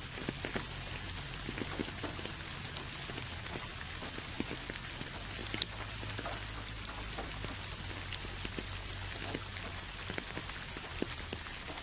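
Steady rain falling, with many separate drops pattering and dripping on surfaces over a low steady rumble.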